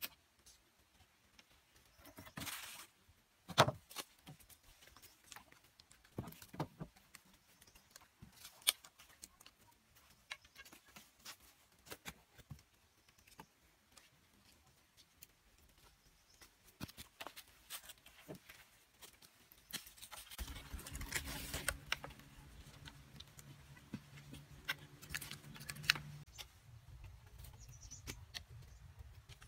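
Scattered knocks, taps and scrapes of bamboo poles being handled and cut by hand, with a sharp knock a few seconds in. A steady low hum comes in about two-thirds of the way through.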